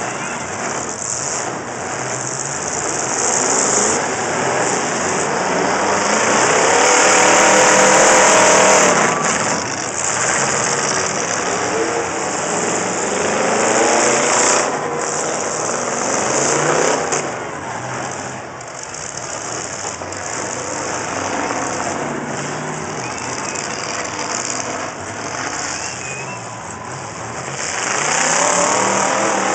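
Demolition-derby truck engine heard from inside the cab, revving up and easing off repeatedly. Its pitch climbs about seven seconds in, again around fifteen seconds, and near the end.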